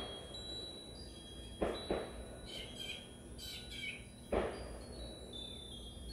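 Birds chirping and wind chimes ringing, with four sharp knocks.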